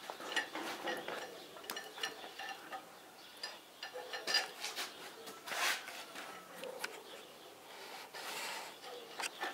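Scattered light metallic clinks, knocks and scraping of hand tools and parts against a cast-iron D115 tractor engine block, the sharpest clink a little past halfway.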